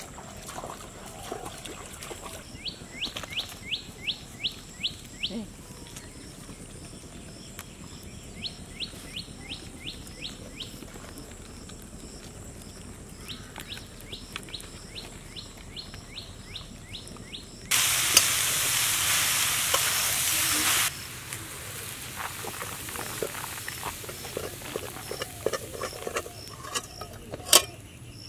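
Outdoor ambience: a bird calling in three runs of quick descending chirps over a steady high insect drone and rhythmic insect chirping. About two-thirds of the way in, a loud rushing hiss lasts about three seconds, and a single sharp click comes near the end.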